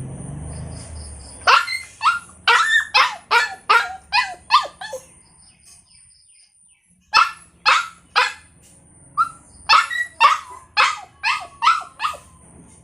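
Puppy yapping in quick, high-pitched barks, each dropping in pitch: a run of about nine, a pause of two seconds, then about a dozen more.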